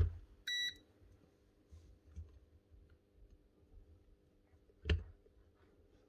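A digital multimeter gives one short, high beep, then faint clicks from probe handling and a single sharp knock about five seconds in.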